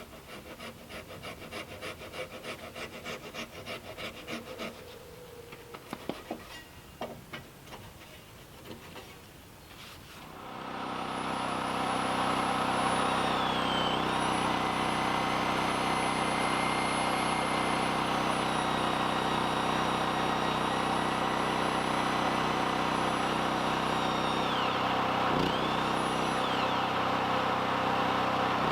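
Rhythmic strokes of a hand tool cutting or rubbing on timber, about three a second, then a few knocks. About ten seconds in, a small engine-driven machine starts up and runs steadily and loudly, with a high whine that dips briefly twice.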